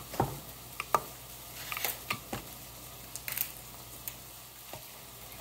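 A few scattered light clicks and knocks from things being handled right by the microphone, over a faint steady low hum.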